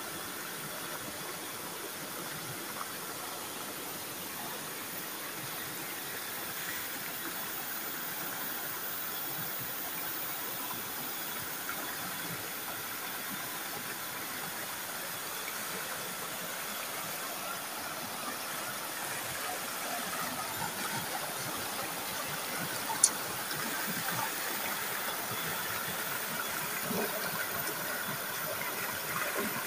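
Shallow rocky stream rushing and splashing over boulders in small cascades: a steady water noise that grows a little louder through the second half. A single sharp click about three-quarters of the way in.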